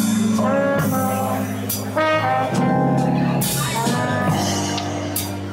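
Live jazz dance band playing an instrumental passage, a trombone leading the melody over bass, drums and a few cymbal strokes, with no singing.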